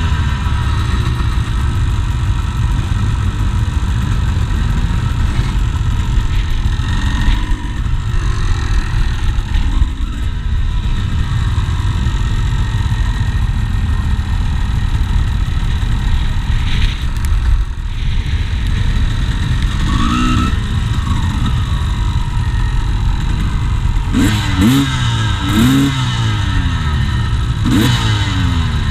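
Enduro motorcycle engines idling with a steady low rumble. Throttle blips rev them up and back down once about 20 s in and several times near the end.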